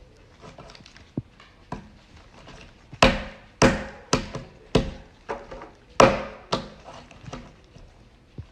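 A series of sharp knocks or thuds. A few faint ones come first, then from about three seconds in a regular run of louder knocks, nearly two a second.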